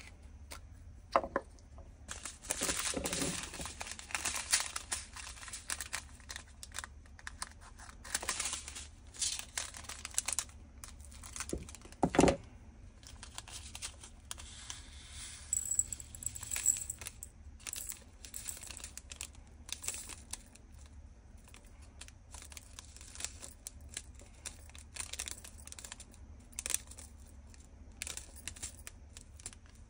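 Small plastic bags of diamond-painting resin drills crinkling and being torn open, with light clicks and rattles of the tiny beads and plastic bottles. There is one louder knock about twelve seconds in.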